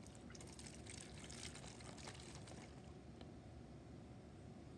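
Faint trickle of hydrogen peroxide being poured from a metal measuring cup through a metal funnel into a plastic bottle.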